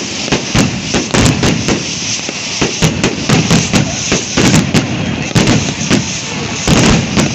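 Large bonfire burning hard, crackling with loud, irregular sharp pops several times a second over a steady rushing of flames.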